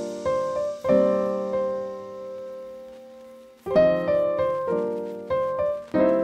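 Background piano music: chords and single notes struck and left to ring out, with fresh chords about a second in, again near four seconds and near the end.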